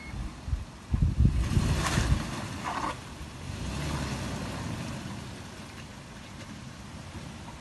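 Toyota Land Cruiser Prado 120 working through a rut off-road: a low engine rumble that surges louder for a second or two, with wind noise on the microphone and brief hissing bursts around two and three seconds in.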